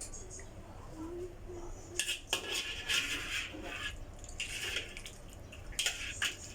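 Kitchen utensils clinking and scraping against pots and dishes in several short bursts.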